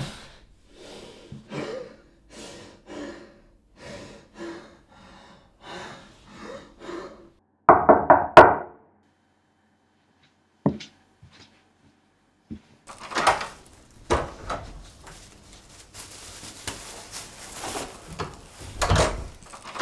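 Interior wooden door sounds: several sharp clicks and knocks of the handle and latch, then the door swinging open with a thud near the end. Earlier come a run of soft, evenly spaced sounds and one louder burst about eight seconds in.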